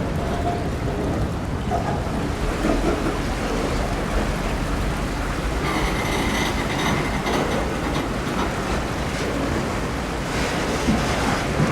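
Canadian Pacific freight train rolling slowly through floodwater over submerged track, a steady rumble, with a brief high wheel squeal about six seconds in.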